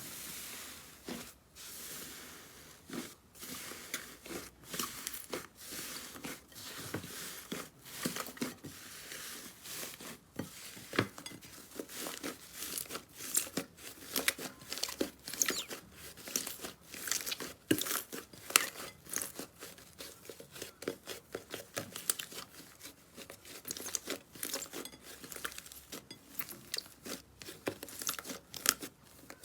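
Slime being squished and stretched, with dense crackling and popping clicks that grow thicker and louder about a third of the way in.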